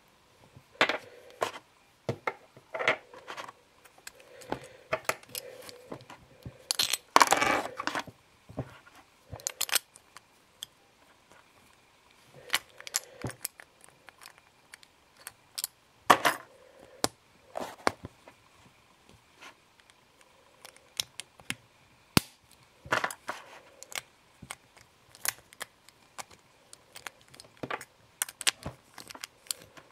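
Handling sounds from unboxing an item: irregular sharp clicks and taps of hard objects and packaging, with a longer rustling stretch about seven seconds in.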